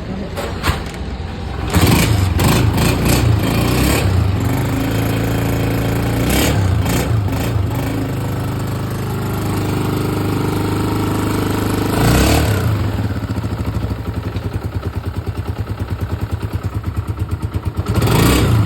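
Honda CG 125's single-cylinder four-stroke engine running after its head and cylinder were refitted. It is revved up about two seconds in, again about twelve seconds in, and near the end, and idles with an even beat in between.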